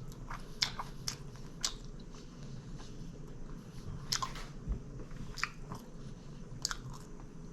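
A person chewing a mouthful of Subway rotisserie chicken sub, with a handful of sharp, irregular mouth clicks and smacks.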